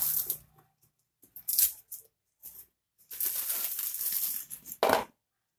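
Plastic packaging and bubble wrap rustling and crinkling as a cardboard tablet box is handled and turned over, in short irregular bursts with a longer stretch of rustling after about three seconds and a brief louder scrape near the end.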